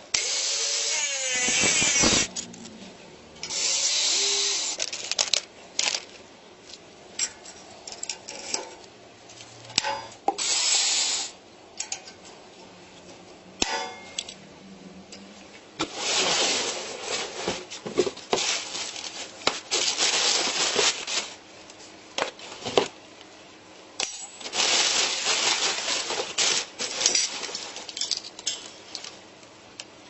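Workshop handling sounds: metal parts clinking and knocking on a steel bench, with irregular bursts of scraping or rustling noise lasting a second or more.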